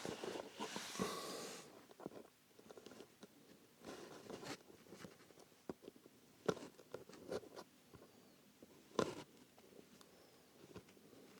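Hand work on a leather shoe's welt as the old welt stitching is picked out: a scraping rub at first, then scattered small clicks and snaps, with a couple of sharper ones later.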